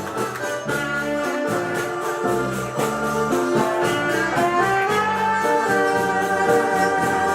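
Bolero music playing, a held melody over a steady beat.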